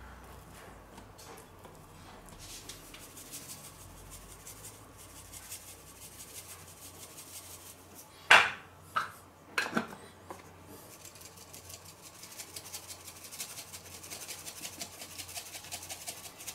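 Metal-lidded spice shaker shaken over raw meat medallions on a wooden cutting board: a faint, even rattle of seasoning grains. A little past the middle come three sharp knocks, the first the loudest.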